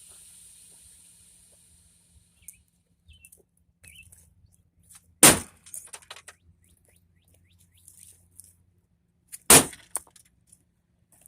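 Two heavy impacts about four seconds apart, a rock hitting an old CRT television that does not break open, with small clatters of debris between them.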